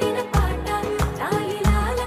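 Background music: a song with a heavy bass beat about every two-thirds of a second under a melody.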